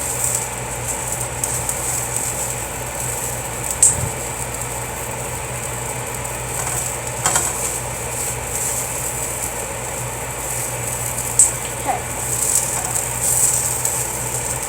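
Sausages sizzling in a frying pan, a steady hiss over a low hum, with a few sharp clicks of a utensil against the pan.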